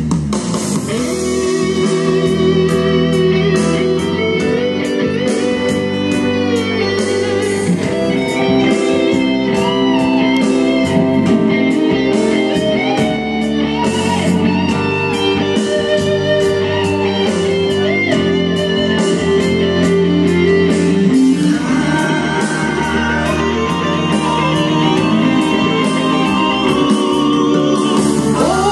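Instrumental music led by guitar, with a steady beat; the arrangement shifts about two-thirds of the way through.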